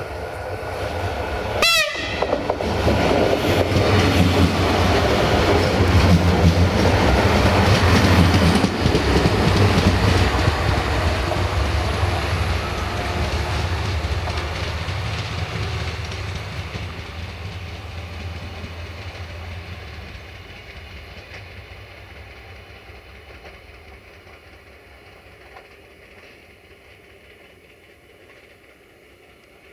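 Siemens Desiro diesel multiple unit passing close by: a very short horn blast about two seconds in, then the diesel engine drone and wheel-on-rail noise peak as it goes past and fade steadily as it runs away.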